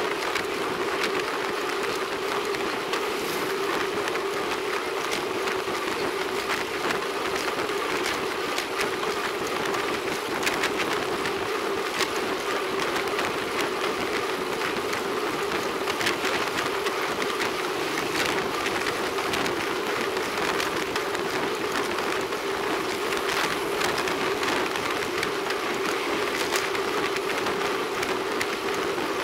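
Steady wind and road noise from a rear-facing camera mounted on a moving road bike: an even rushing hum with scattered small clicks and knocks.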